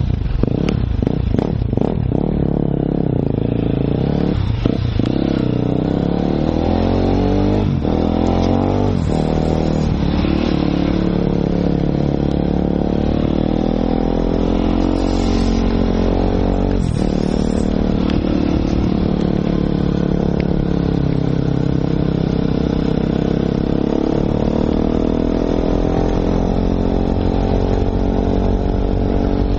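Enduro motorcycle engine heard from the rider's onboard camera while riding, its pitch climbing and falling again and again with the throttle and gear changes, with a few short clunks early on.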